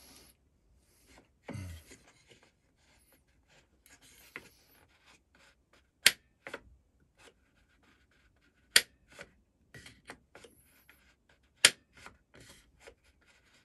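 Homemade wooden ratchet wheel turned slowly by hand, its spring-loaded pawl snapping over the teeth. Three sharp clicks come about three seconds apart, with quieter ticks and wood rubbing between them.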